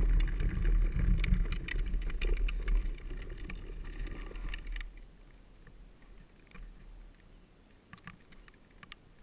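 Drift trike rolling on wet asphalt: a low rumble of wheels and wind buffeting the chest-mounted camera, with scattered clicks and rattles. It fades away after about three to five seconds.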